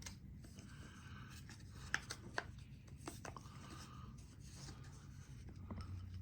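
Faint rustling of packaging being handled, with a few light clicks and taps about two and three seconds in.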